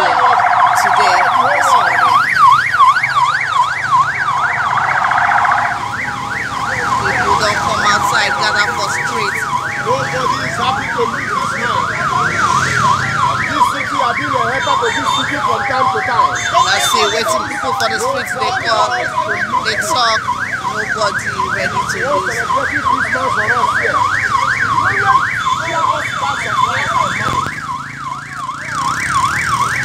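Vehicle siren in a fast, repeating up-and-down yelp that carries on throughout and dips briefly near the end. A steady horn-like tone sounds over it for the first few seconds, and a slower wail sweeps up and back down around the middle.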